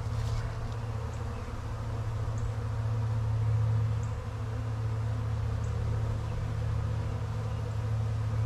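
A swarm of honeybees in flight, the many bees together making a steady, unbroken buzzing hum.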